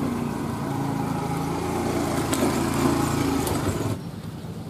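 A small vehicle engine running steadily, a little louder toward the middle, then dropping away suddenly about four seconds in.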